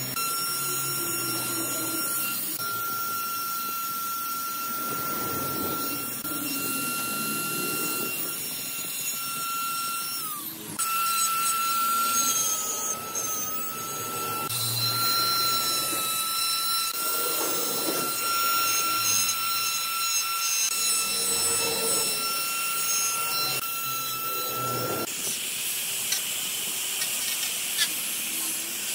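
Electric die grinder running at high speed with a steady high whine while its burr bit grinds into the hardwood, the cutting noise rising and falling as it is pressed into the wood. About four seconds before the end the whine stops and an angle grinder with a sanding disc takes over, a broader rushing noise as it sands the wood.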